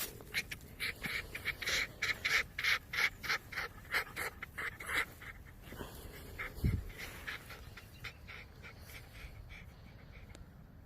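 A fox gekkering: a fast, staccato chatter of short calls, about five a second, that thins out to scattered calls after about five seconds. This is the chatter foxes make in a squabble over who is dominant. A low thump about two-thirds of the way through.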